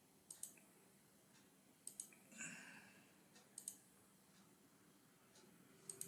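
Faint computer mouse clicks: four quick press-and-release double clicks spaced a second or two apart, with a short soft hiss between the second and third.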